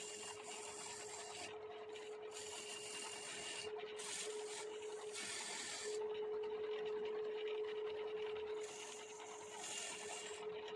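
Wood lathe running with a steady hum while a tool scrapes against the spinning wooden bangle blank, the scraping coming and going in spells.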